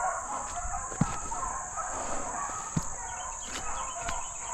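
A pack of rabbit hounds baying in the distance as they run a rabbit's trail, several voices overlapping, with a couple of sharp knocks about a second in and near three seconds.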